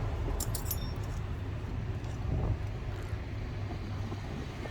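Steady low background rumble, with a few faint light clicks about half a second in.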